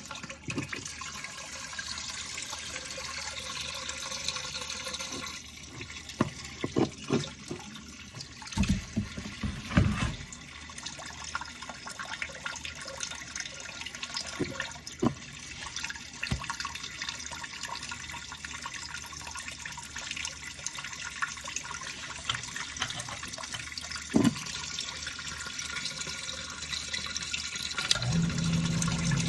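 Water running steadily out of a water heater's opened drain valve as the tank is flushed of sediment, with a few knocks along the way and a low hum coming in near the end.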